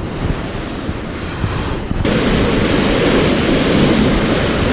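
Sea surf washing over rocks with wind buffeting the microphone, getting louder about two seconds in.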